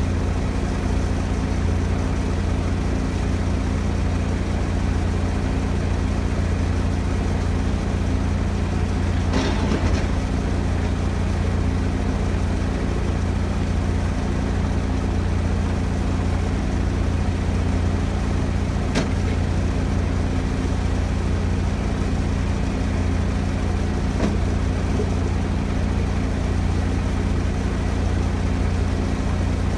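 Heavy engine idling steadily, with a few sharp knocks at intervals over it.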